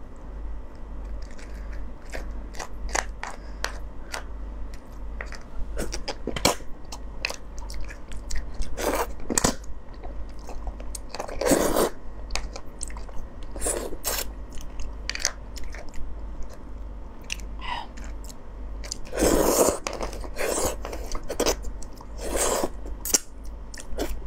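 Close-miked crunching and chewing as raw soy-marinated crab is bitten and its shell cracked: a scatter of sharp cracks, with a few longer, louder bursts around halfway and about four-fifths in.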